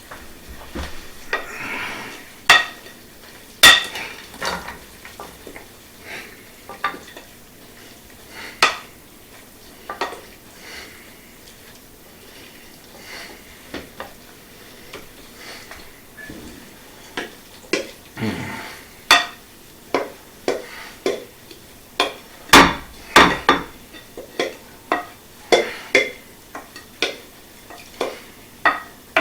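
A utensil clinking, knocking and scraping against a 9 by 13 baking dish as bread stuffing is spooned in and spread out: irregular sharp clinks, sparse at first, then coming in quick succession for the last third.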